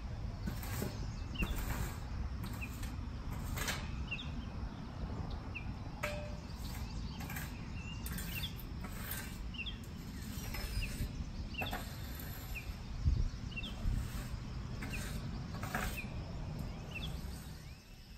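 A 36-inch landscape rake scraping across turf in irregular strokes, working top dressing into a new lawn, while small birds chirp with short rising notes over a low steady rumble.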